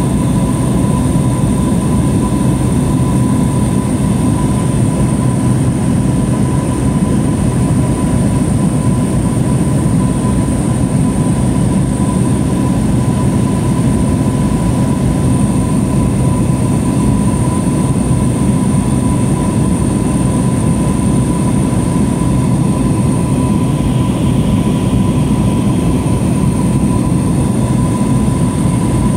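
Steady, loud drone of a small propeller plane heard inside the cabin in flight: engine and propeller noise, with a thin steady whine above it.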